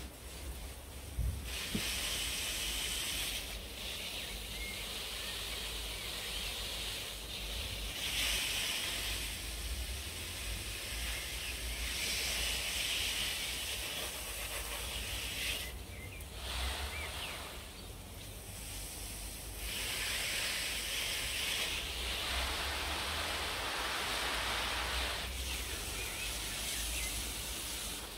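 Wind gusting through garden plants: a hiss that swells and fades every few seconds, with a low rumble of wind on the microphone.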